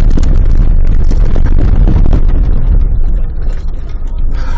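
Inside a Range Rover bouncing along a rough off-road track: a loud, distorted low rumble full of knocks and jolts from the body and suspension, easing a little near the end.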